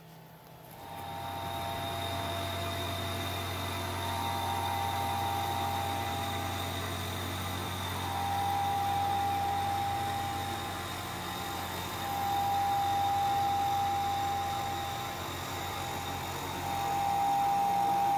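CNC-converted Bridgeport milling machine running an end mill along the edge of a cast square. The spindle and cut come up about a second in and run steadily, with a low hum and a whine that comes and goes as the loudness swells and dips.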